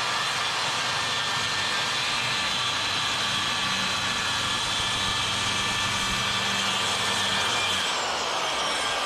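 Electric saw running at full speed, cutting through a half-inch wood sheet. About a second before the end its pitch starts falling as the motor winds down once the cut is finished.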